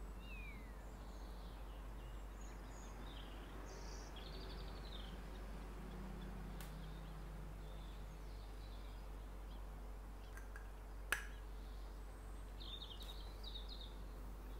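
Quiet room ambience: a steady low hum with a few faint, high bird chirps and short trills, and a single sharp click about eleven seconds in as the perfume bottle and its cap are handled.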